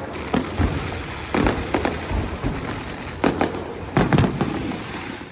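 Aerial fireworks bursting: a run of sharp bangs in small clusters, about nine in all, over a steady background haze.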